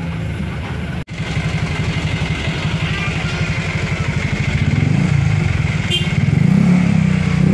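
Motorcycle engine running close by, a fast even putter that grows louder over the last few seconds; the sound drops out for an instant about a second in.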